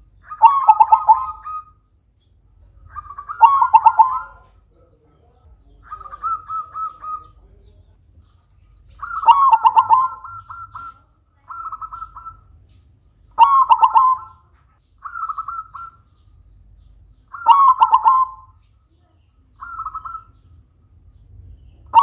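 Silver-morph zebra dove (perkutut) cooing its rhythmic song, with a loud rolling coo phrase about every two seconds, alternating with shorter, softer trilled phrases.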